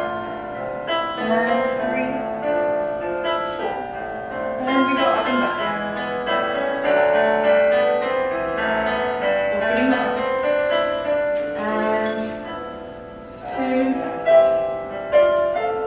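Classical piano music playing as ballet barre accompaniment, with held notes that swell and change.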